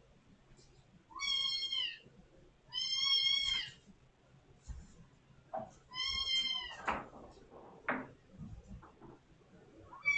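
Kitten meowing loudly three times, calls of about a second each, to be let out of a closed room. A few short clicks and thumps follow the last call.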